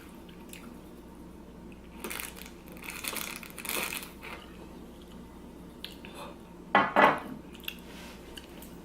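Cutlery scraping and clinking against a plate during eating, with a louder brief sound in two quick parts about seven seconds in.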